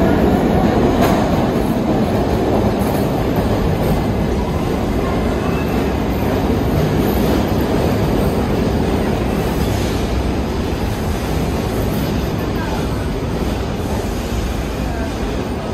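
R68 subway train pulling into an underground station: a loud, dense rumble of steel wheels on rail that gradually eases as the train slows.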